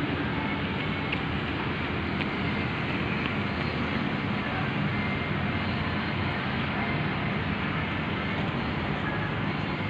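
Steady outdoor city background noise, a constant rumble like distant traffic, with no single clear event.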